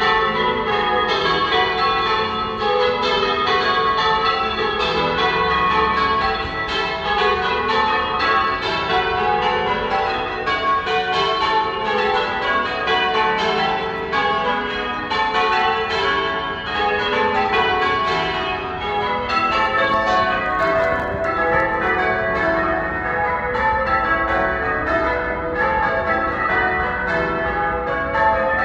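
Church tower bells change ringing: the bells strike one after another in a steady, unbroken stream of evenly spaced strokes, each tone ringing on under the next.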